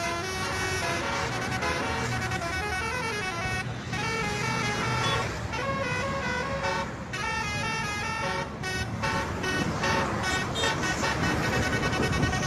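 A bus's telolet "basuri" air horn, a set of twelve trumpets mounted on the roof, playing a tune of quickly changing notes. Engine and road noise run underneath.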